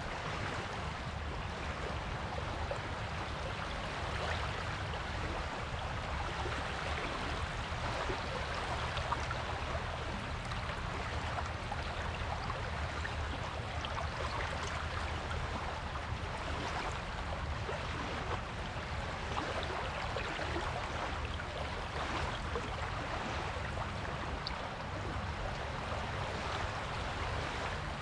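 Surf on a beach: a steady rush of breaking and washing waves, fizzing and crackling, over a low rumble.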